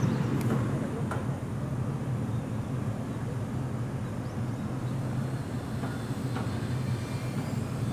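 Steady low hum of a standing electric train at a station platform, with a few faint clicks.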